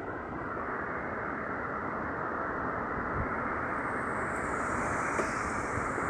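Wind blowing through leafy trees: a steady rushing of leaves that builds slightly, with a gust buffeting the microphone about three seconds in.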